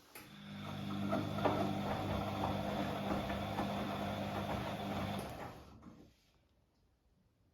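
Bosch WAA28165GB washing machine drum motor spinning up over about a second, running with a steady hum and a thin high whine, then cutting out and winding down about five seconds in: the sound of a faulty motor.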